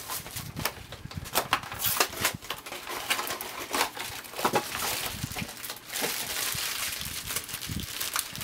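Small cardboard blind boxes being pulled open by hand and the foil bags inside crinkling, an irregular run of sharp crackles and rustles.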